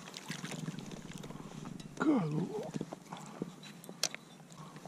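Small splashes and knocks from a common carp in a landing net beside an inflatable kayak. About two seconds in, a short wordless vocal exclamation that dips and then rises in pitch is the loudest sound, and a sharp click follows near the end.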